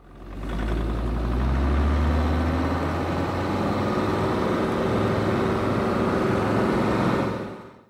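Land Rover Discovery driving along a snow-covered road, heard from outside beside the front wheel: steady engine running under tyre and wind noise. It fades in over the first second and fades out near the end.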